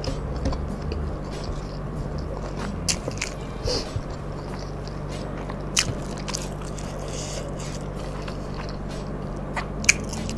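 Close-miked chewing and mouth sounds of someone eating with a few sharp clicks, over a steady low hum.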